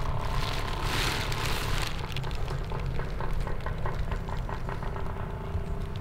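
Rustling and crackling of movement through forest undergrowth over a steady low rumble on the microphone. A louder rush of rustling comes about a second in, then a run of quick light crackles.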